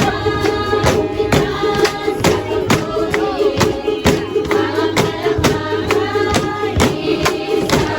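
Music with voices singing together over a steady beat of about two strikes a second and a held low tone.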